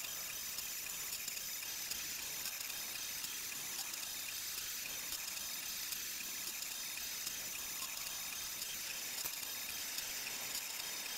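Monoprice Select Mini 3D printer running mid-print: a steady fan hiss with faint ticks from its moving mechanism.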